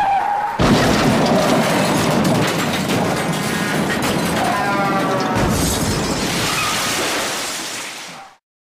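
Crash sound effect: a brief high squeal at the start, then about half a second in a sudden loud crash of dense noise that rolls on for several seconds and fades out near the end.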